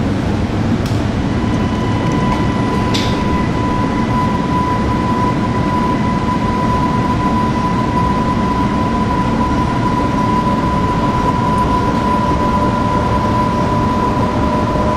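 Beijing Subway Line S1 medium-low-speed maglev train running out of the station, heard from inside the carriage. Its steady running noise carries a thin, steady high whine from about a second in, with a couple of small clicks in the first few seconds.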